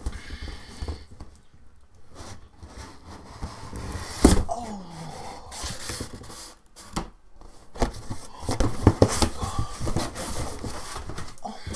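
Cardboard box being opened and rummaged through: flaps rustling and scraping, with a sharp knock about four seconds in and a run of crackles and taps from about eight to ten seconds.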